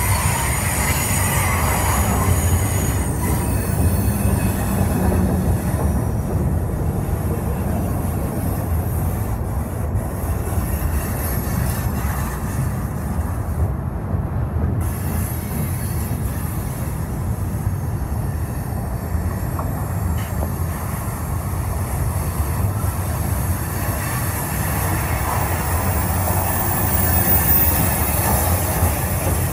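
Union Pacific freight train's covered hoppers and loaded lumber flatcars rolling past close by: a steady, continuous rumble of steel wheels on the rails.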